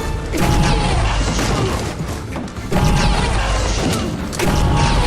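Three heavy film sound-design blasts or impacts, about a second and a half to two seconds apart, each striking suddenly and dying away with a ringing tail, over film score.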